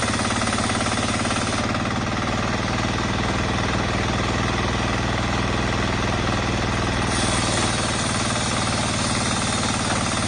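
Small portable engine generator running steadily at constant speed, a fast even engine beat.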